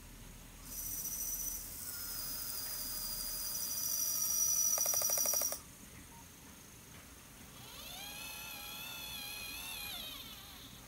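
Radio-controlled model tractor's electric drive motor and gearing whining at a high pitch as it drives off towing a roller, with a rapid rattle near the end of the whine about five seconds in. A lower whine then rises, wavers and falls away.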